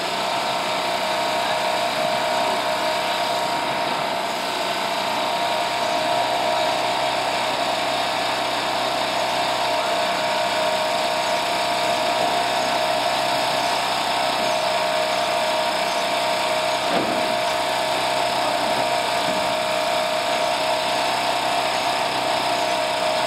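A loud, steady mechanical drone with a fixed pitch that does not change, cutting off abruptly at the end.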